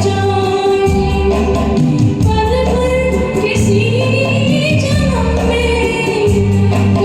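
A woman singing a Hindi film song over a karaoke backing track, with a steady bass line under the melody.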